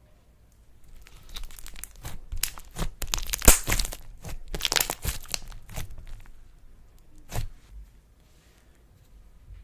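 Slime being squeezed and stretched by hand, giving a dense run of crackling, crinkling pops, with one more pop near the end.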